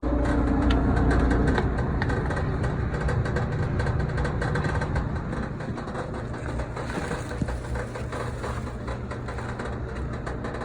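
Whirlpool electric clothes dryer running: motor, blower and turning drum give a steady low hum with a constant light rattle.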